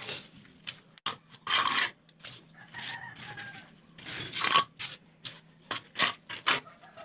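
Steel trowel scraping and scooping wet cement mortar off a pile and a mortar board, in irregular short scrapes and knocks.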